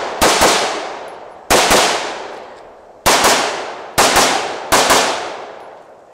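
Semi-automatic AR-15 rifle fired in quick double taps: about five pairs of shots roughly a second apart, each shot's report echoing as it dies away. The firing stops a second before the end.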